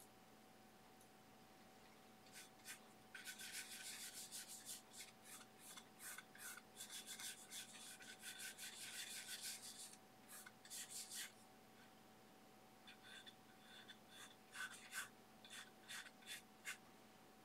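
Natural hog-bristle filbert brush scrubbing oil paint onto a smooth, gesso-primed aluminium composite panel: faint, quick rubbing strokes. The strokes start about three seconds in and run steadily for some seconds, then come in short bursts with a pause between.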